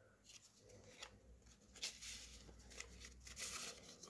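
Faint rustling and soft clicks of thick paper tags and tickets being leafed through by hand.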